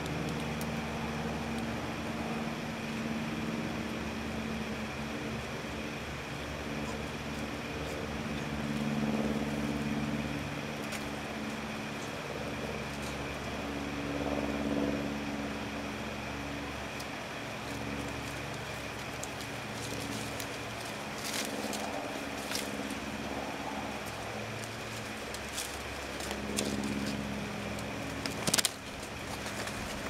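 Steady low hum of a distant motor engine, running on throughout. A few faint clicks come near the end, then one sharp knock just before it finishes.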